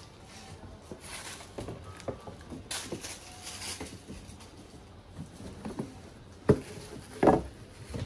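Packaging being handled as a cardboard suit box is set on a glass counter and opened: tissue paper and plastic rustling, with a sharp rustle about three seconds in and two knocks near the end as the box and lid are handled.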